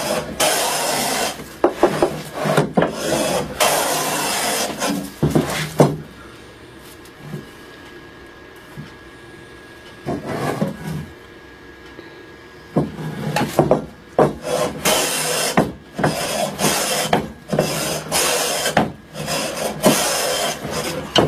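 Hand plane shaving the face of a wooden frame strip in a series of quick repeated strokes, with a pause of a few seconds in the middle; the stock is being planed flat and true.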